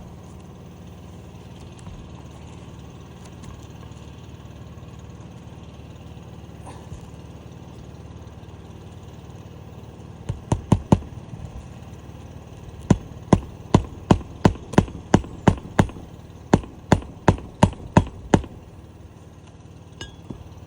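Hammer blows on an asphalt shingle roof during a shingle repair attempt: four quick strikes about halfway through, then a steady run of about fifteen at roughly two and a half a second. A steady low hum runs underneath.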